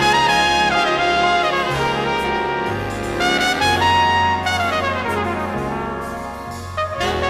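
Flugelhorn playing a slow jazz ballad solo over bass accompaniment, moving between held notes and quick descending runs, growing softer near the end.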